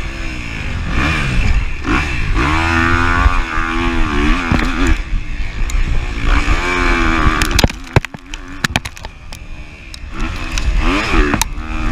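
Four-stroke single-cylinder engine of a 2023 Kawasaki KX250F motocross bike at race pace, revving up and down through the gears. About two thirds of the way through the throttle is shut with a few sharp knocks from the bike, the engine drops to a quieter run for a couple of seconds, then revs hard again near the end.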